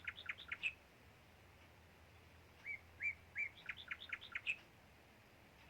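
A small songbird singing a repeated phrase: a few short rising notes followed by a quick run of higher, sharper notes. The end of one phrase comes right at the start, and a full phrase follows about three seconds later.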